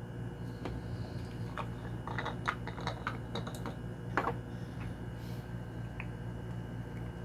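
Light plastic clicks and taps as the screw cap of a plastic acetone bottle is twisted off and set down on a wooden desk, a quick cluster with one louder tap about four seconds in.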